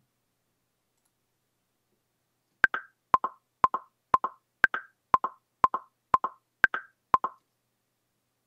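Logic Pro's metronome ticking at 120 beats per minute in 4/4: ten clicks half a second apart, starting about two and a half seconds in, with the first click of every four higher in pitch. Each click is doubled by a fainter echo just after it, from the computer's built-in mic picking up the speakers as well.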